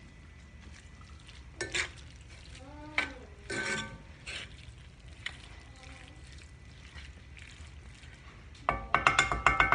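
Metal spoon stirring and scraping seasoned ground beef in a skillet over low heat, with light frying sizzle. A few short scrapes early, then a dense run of clattering, ringing utensil-on-pan strokes near the end.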